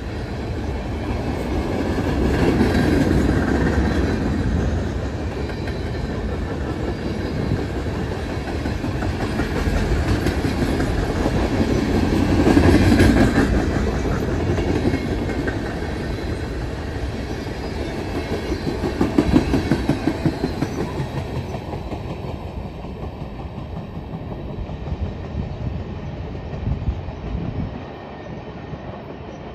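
Freight cars, covered hoppers and boxcars, rolling past on steel rails with a steady rumble that swells as each car goes by and the clickety-clack of wheels over rail joints, including a run of quick clicks about twenty seconds in. The sound fades over the last several seconds as the end of the train moves away.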